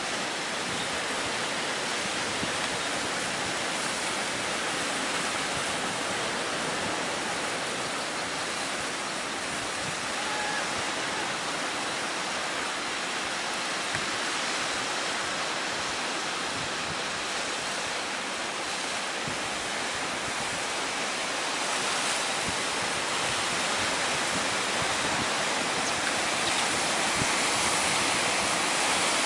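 Steady rushing noise of strong wind and high waves breaking on the shore, growing a little louder near the end.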